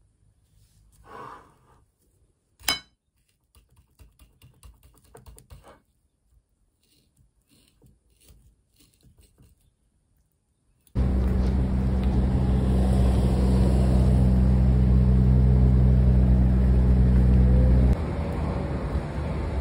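Soft clicks and taps of a metal fork on a plate, with one sharp click. About eleven seconds in, a sudden loud, steady low rumble and hum of street traffic takes over, dropping somewhat near the end.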